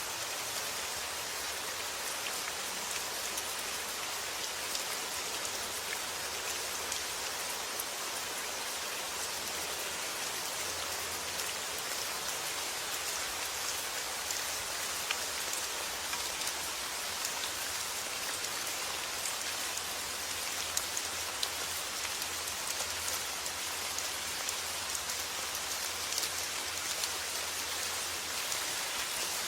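Steady rain falling on a surface: an even hiss with many small, distinct drop ticks scattered through it.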